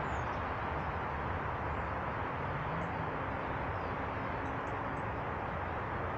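Steady rushing background noise with a few faint, short, high bird chirps, a couple of them near the start and a cluster around two thirds of the way in.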